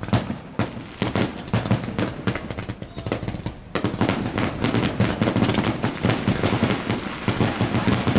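Fireworks going off in rapid succession: a quick run of cracks and bangs that thickens into near-continuous crackling about four seconds in.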